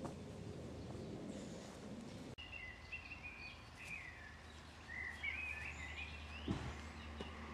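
Low rumbling noise that cuts off abruptly a little over two seconds in, followed by small birds chirping and twittering over a steady low hum, with a single sharp knock near the end.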